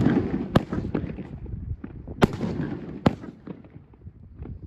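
Fireworks going off: three loud, sharp bangs with smaller pops and crackling between them.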